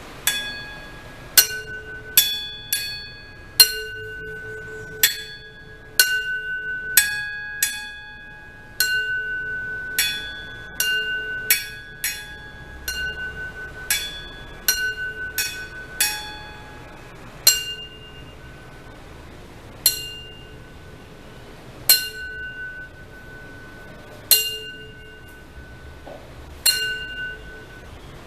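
Two saucepan lids, tuned to G and F-sharp, struck as percussion in an irregular rhythm, each strike ringing on with a bell-like tone. The strikes come in quick clusters at first and thin out to single, spaced hits toward the end.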